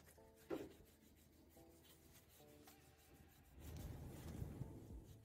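Microfiber cloth wiping over the painted steel of a dented fender: a faint rubbing that gets louder from about three and a half seconds in.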